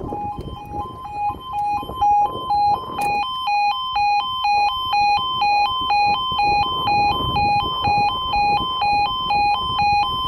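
Railway level crossing two-tone warning alarm, switching between a lower and a higher tone about twice a second as the barriers lower, growing louder about three seconds in. Wind rumbles on the microphone underneath.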